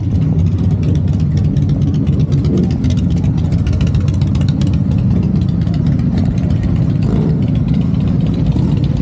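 Harley-Davidson motorcycle's V-twin engine running, a steady low exhaust note.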